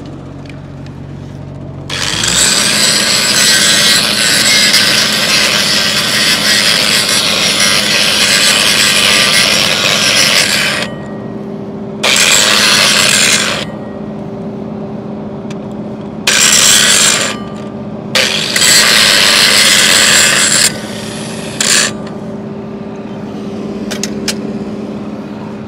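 Angle grinder starts about two seconds in and grinds down a steel pipe weld for about nine seconds. It then makes three shorter grinding passes, with the motor still running and humming between them.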